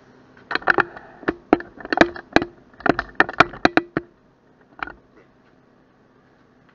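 Spoon knocking and clinking against a stainless steel cooking pot, an uneven run of about fifteen sharp strikes, each with a brief metallic ring, then a single strike a second later.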